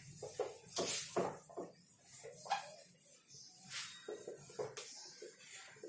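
Hand-held duster wiping a whiteboard clean: a quiet, irregular scrubbing in short strokes with a few sharper scrapes.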